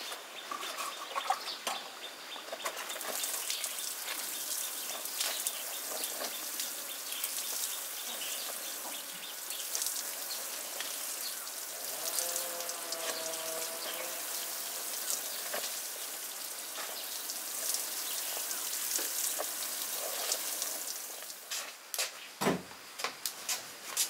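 Outdoor farm ambience: birds chirping over a steady high hiss, with scattered light clicks. About halfway through comes a short pitched animal call, and near the end a few sharper ticks.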